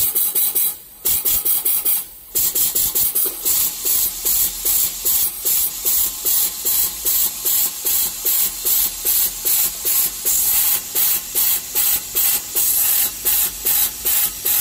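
An SMT nozzle cleaner's high-pressure water jets spraying inside the cleaning chamber in rapid pulses of hiss, about three a second, with two short breaks about one and two seconds in.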